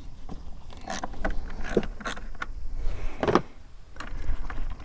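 Scattered clicks, rattles and knocks of hands working battery cable connections and handling a battery in its battery box, with a louder knock a little over three seconds in.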